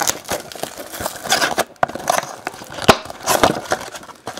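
Plastic shrink-wrap and cardboard crinkling and tearing as a sealed hobby box of trading cards is unwrapped and opened: a rapid, uneven run of crackles and rustles.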